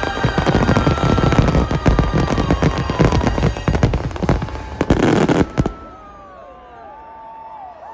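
Fireworks finale: a rapid, dense barrage of bursts and crackling that cuts off suddenly about five and a half seconds in.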